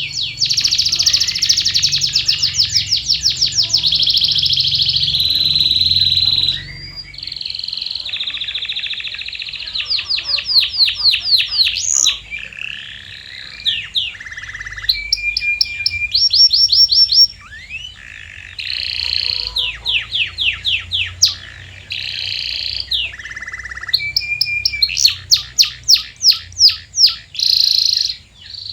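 Domestic canary singing a long song of trills and rolls. Fast runs of repeated short notes alternate with held, buzzy trills, and the song breaks off briefly now and then.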